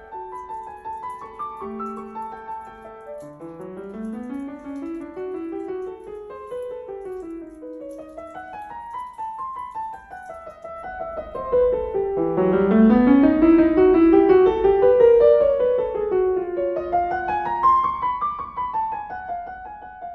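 Background piano music: flowing arpeggios that sweep up and down, growing louder a little past the middle.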